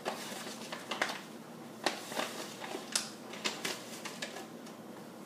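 Spoonfuls of dry pancake mix being scooped from a crinkly foil-lined bag with a measuring spoon: the bag rustles and the spoon makes a string of irregular light clicks and taps.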